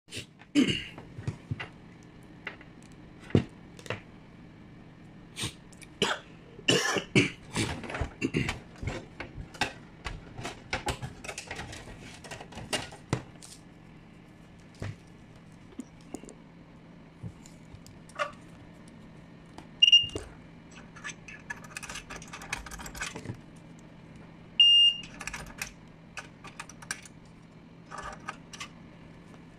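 Handling noise from a DeSisti 1K fresnel stage light, its plug and cables on a workbench: irregular clicks, taps and knocks, busiest in the first half. A steady low hum runs underneath, and two short electronic beeps sound about two-thirds of the way through.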